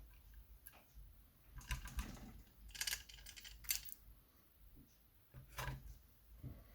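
Light metallic clicks and small rattles from the pins and springs of a TSS euro cylinder lock being tipped out of the cylinder as it is taken apart. They come in a few short clusters about two, three and four seconds in, then once more past five seconds.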